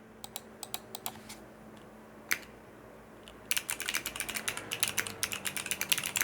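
Typing on a mechanical keyboard with clicky switches and clear polycarbonate Cherry-profile keycaps. A few scattered keystrokes come first, then fast continuous typing from about three and a half seconds in.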